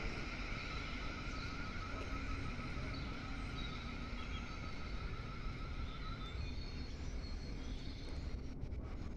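Class 707 electric multiple unit pulling away down the line. A faint, slightly wavering whine fades out about two-thirds of the way through, over a steady low background rumble.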